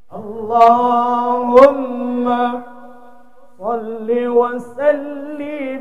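A man reciting the Qur'an in melodic tilawah style, amplified through a microphone, in two long ornamented phrases. The second phrase begins about three and a half seconds in. There is a brief sharp click in the middle of the first phrase.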